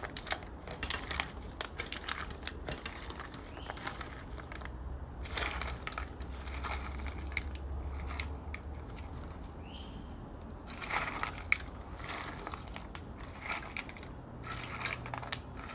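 Dry dog kibble being stirred together with wet food: irregular crunching, rattling and scraping.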